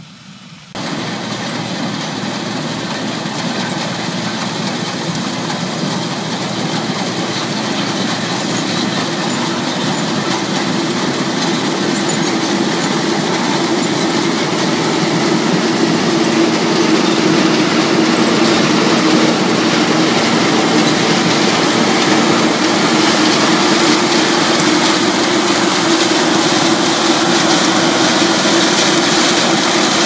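New Holland TR98 combine harvester running while it cuts soybeans: a steady drone of the diesel engine and the machinery working, which comes in abruptly about a second in and grows gradually louder.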